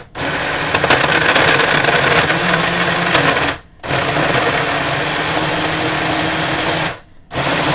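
Personal blender motor running in three pulses as it blends a smoothie of cherries, banana and coconut: about three and a half seconds, a brief stop, about three seconds more, then a third run that starts just before the end.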